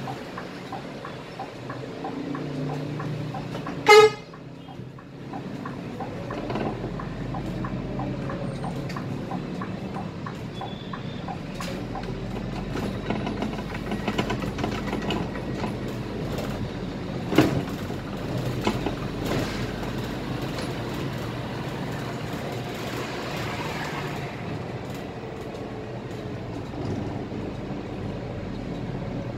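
Cabin sound of a Scania K320 IA articulated bus driving in traffic: steady engine and road noise. A single short, loud horn toot comes about four seconds in, and a smaller sharp sound about seventeen seconds in.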